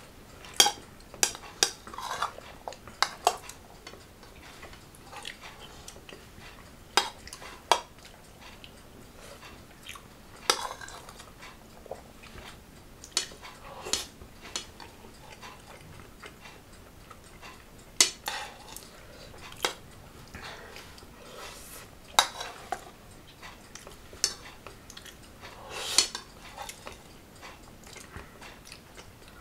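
Metal spoons clinking and scraping against plates as people eat: short, sharp clicks at irregular intervals, often a second or two apart, sometimes in quick clusters.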